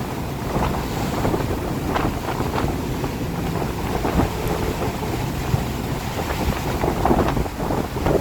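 Wind blowing hard in a rainstorm, buffeting the microphone with an uneven, rushing noise.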